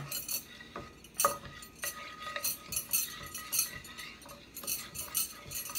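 Wooden spatula scraping and knocking against a stainless-steel frying pan while stirring oil and sauce together: irregular taps and scrapes, with the pan ringing faintly after some of the knocks.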